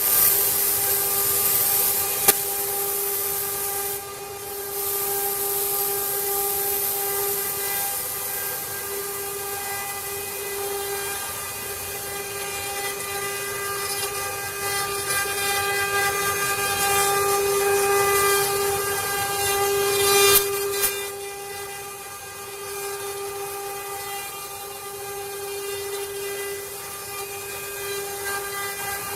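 CNC wood router spindle running at a steady high whine with a hiss of cutting. The hiss dips briefly about four seconds in, and there is a short louder burst a little past the middle, after which it runs quieter.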